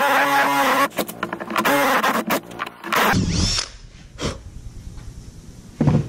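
Milwaukee cordless drill driving a 3/4-inch spade bit through a plywood panel: a steady motor whine, then stop-start bursts as the trigger is worked, ending about three seconds in. After that a few knocks of handling on the bench, the loudest near the end.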